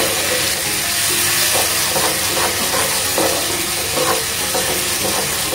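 Thick ground-coconut masala paste sizzling in hot oil in a non-stick frying pan, with a wooden spatula stirring and scraping through it in repeated strokes.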